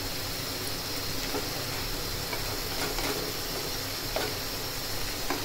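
Chicken kheema with green peas sizzling and simmering in a pan, with a few light scrapes and taps of a spatula against the pan as the masala is stirred in.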